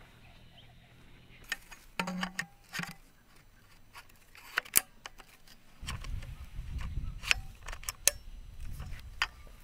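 Light clicks and knocks of tent pole sections being handled and fitted together at their metal joints, with a low rumble through the second half.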